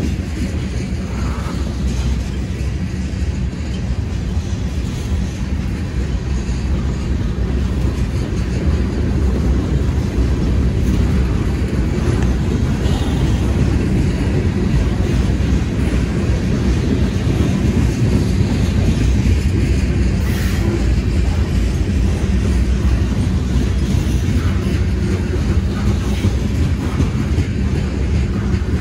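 Freight cars of a long manifest train (tank cars, a boxcar, then centerbeam flatcars loaded with lumber) rolling steadily past on steel wheels. A continuous low rumble with rhythmic clickety-clack from the wheels over the rail joints.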